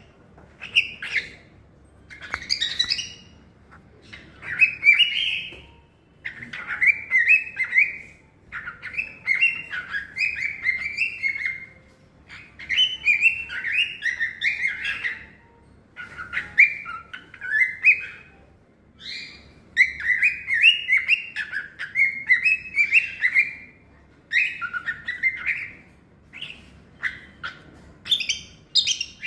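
Cockatiel singing: bursts of quick, warbling chirps and whistles in phrases of one to three seconds with brief pauses between them.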